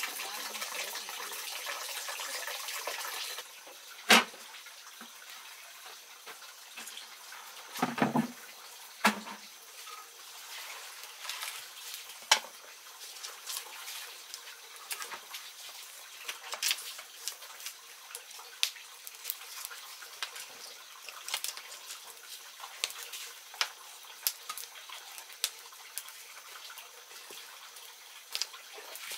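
Wood fire crackling in a wood-fired cooking stove, with irregular sharp snaps and pops and a few louder knocks near four and eight seconds. It opens with a steady hiss that cuts off about three and a half seconds in.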